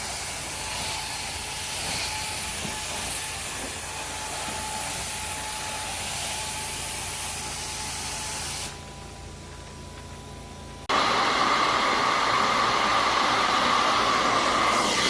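Carpet-cleaning extraction wand running with a steady hiss of spray and suction, dropping quieter about nine seconds in and coming back louder with a steady whistle about two seconds later.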